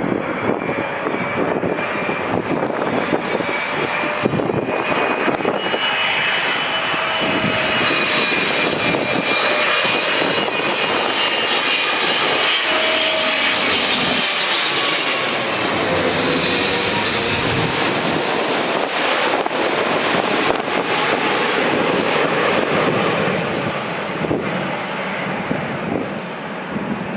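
Boeing 777F cargo jet's GE90 turbofans coming in to land and passing by, a loud jet rumble with a high whine that is loudest about two-thirds of the way through and eases off near the end.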